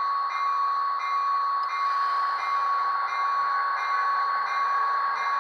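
Rapido F40PH model locomotive running on track, its onboard sound playing the diesel locomotive sound through a small speaker. The sound is steady, with a strong high tone and a light tick repeating about three times a second.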